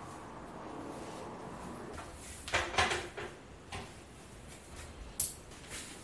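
Soft rustling with a few light knocks and clicks from a person moving and handling her hair, the busiest stretch about halfway through, and one sharp click about five seconds in.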